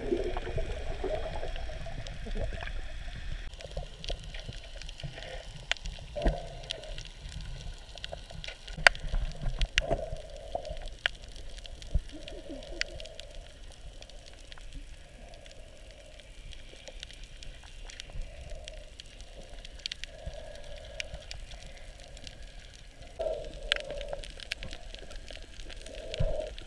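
Sound heard underwater through a GoPro camera's microphone: a low wash of water with recurring soft swells and scattered small clicks and knocks.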